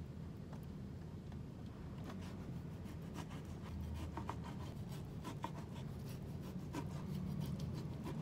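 A kitchen knife cutting raw pork back ribs into pieces on a plastic cutting board. Scattered, irregular light clicks and taps of the blade on the board start about two seconds in, over a low steady hum.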